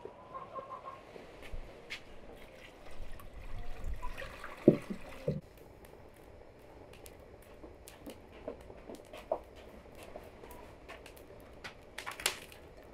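Water poured from a jug into a large aluminium pot, with two sharp knocks midway. Scattered metal clicks and clunks follow, with a cluster near the end as the pot is set down on the metal sheet over the burner.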